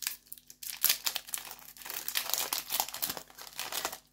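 Foil Yu-Gi-Oh! booster pack wrapper crinkling and tearing in the hands as it is ripped open, a dense, irregular crackle that is busiest from about a second in.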